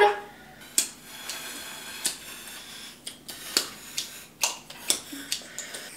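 Scissors snipping a plastic drinking straw that air is being blown through, in about seven sharp clicks spread over the few seconds; the straw itself gives out only a faint sound.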